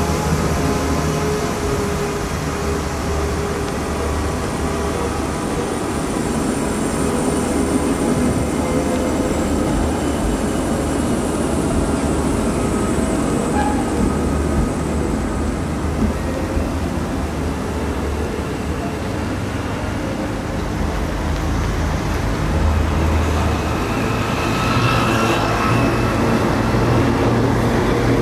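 Trams and street traffic on a tram line: a steady low rumble that grows louder near the end as a vintage tram comes by close on its rails, with a thin high tone from the passing tram.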